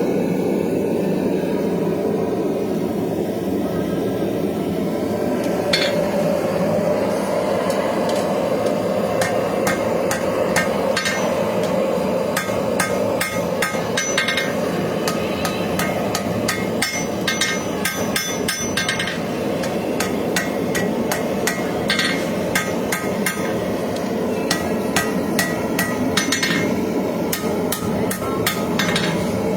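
Hammer blows on hot knife steel at the anvil, in runs of quick ringing strikes starting about a third of the way in, with a pause before the last run. A steady gas-forge roar runs underneath.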